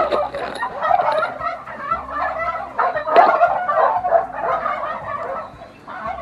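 Domestic turkeys gobbling, several rapid warbling calls overlapping almost without a break, with one sharp knock about three seconds in.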